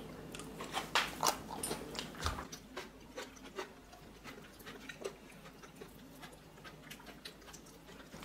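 Wooden chopsticks clicking and scraping against a ceramic bowl as noodle soup is stirred and noodles are lifted out. The sound is a scatter of light clicks, most of them in the first half.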